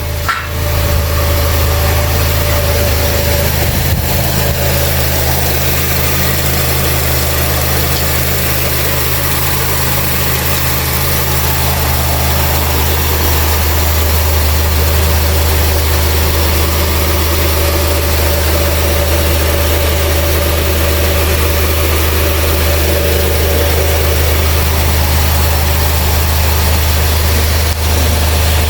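Honda CR-V engine idling steadily, with a low, even hum.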